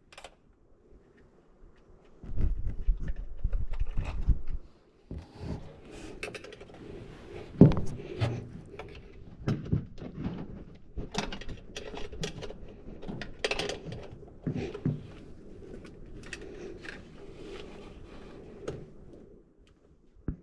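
Scattered clicks, knocks and light clinks of hands working on an engine bay, unclipping the plastic fuel-injector connector tabs on a 5.3 LS V8. A loud low rumble runs for about two seconds near the start.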